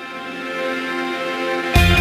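Background music: held notes swelling slowly louder, then a loud rock track with heavy bass and a driving beat cuts in near the end.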